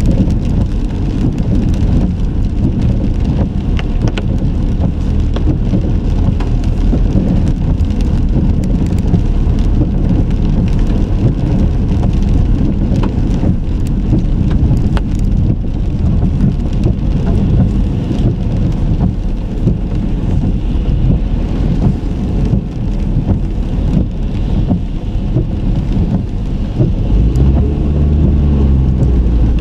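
Steady low rumble of a car on the move, tyre and engine noise, with scattered faint ticks. Near the end a deeper engine hum with a clear pitch comes in.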